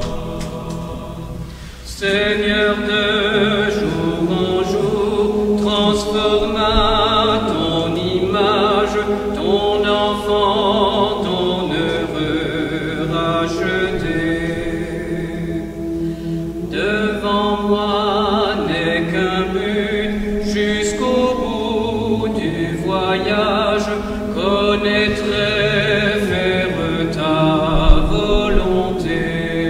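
A choir singing a hymn in held, wavering notes, with a short break about two seconds in and another about halfway through as a new phrase begins.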